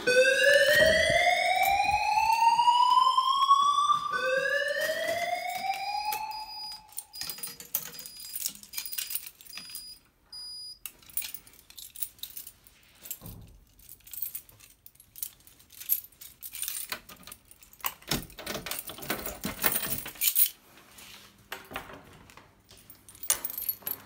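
Fire alarm evacuation tone: two rising whoop sweeps, the first about four seconds long, the second cutting off partway through. A faint high beep repeats for a few seconds after, then scattered quieter clicks and knocks.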